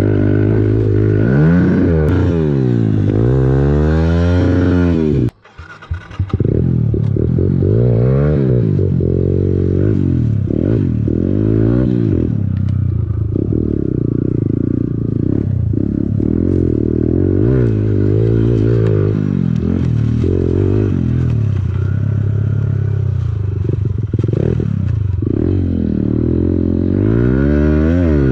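Pit bike's small single-cylinder four-stroke engine revving hard and falling off again and again as it is ridden through the gears. It briefly cuts out about five seconds in.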